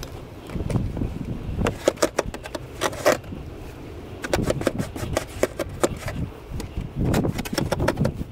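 Snow shovel scraping and crunching through snow in irregular strokes, over low wind rumble on the microphone.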